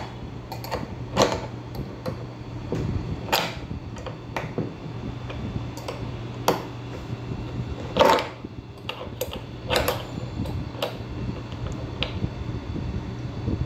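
Small flat metal spanner clicking and scraping against a nut and washer as the nut is tightened on the hub of a hollow plastic stand base: irregular sharp clicks, the loudest about a second in and about eight seconds in, over a steady low hum.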